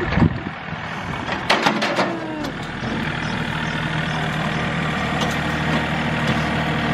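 Farm machinery engine running steadily with an even hum, with a thump at the start and a few sharp clicks and knocks about one and a half to two seconds in.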